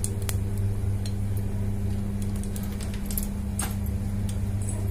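A steady low electrical hum, like a motor running, with a few faint light clicks, the clearest about three and a half seconds in.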